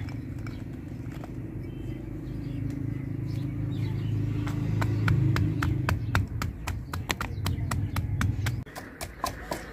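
A wooden pestle pounding garlic cloves in a stone mortar, crushing them into paste: quick sharp knocks, about four a second, starting about halfway through. A steady low hum runs underneath and cuts off suddenly near the end.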